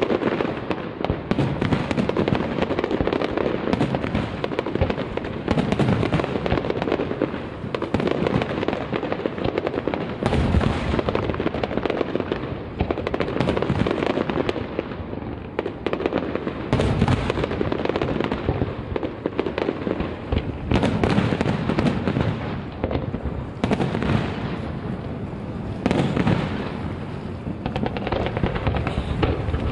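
Professional fireworks display: a dense, continuous barrage of aerial shell bursts booming and crackling, with no pauses between them.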